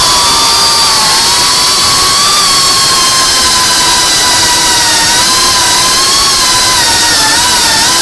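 FPV racing quadcopter's brushless motors and propellers whining steadily, heard from on board the drone. The pitch wavers up and down as the throttle changes, with a small dip near the end.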